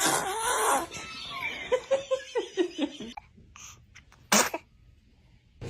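Short bursts of laughter through the first three seconds, then one brief, sharp sneeze from a newborn about four seconds in.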